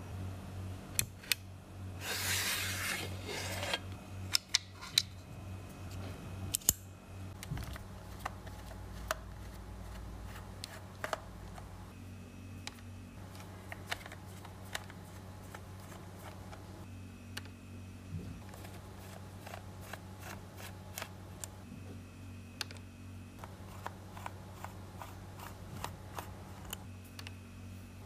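Small screws being backed out of the plastic shell of a PlayStation 4 DualShock 4 controller with a precision screwdriver, with scattered clicks and taps of plastic being handled and short faint squeaks every few seconds. There is a brief scraping rustle about two seconds in, and a quick run of plastic clicks near the end as a pry tool works the shell seam.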